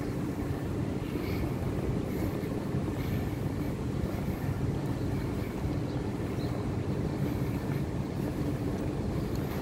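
Steady low rumble of outdoor background noise while walking, with a few faint brief higher sounds on top.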